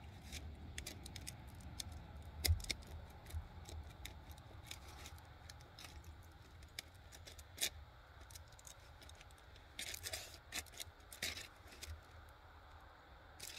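Knife cutting through a grilled ham steak on aluminum foil: scattered short scrapes and crinkles of the blade on the foil, with a cluster of sharper scrapes about ten seconds in.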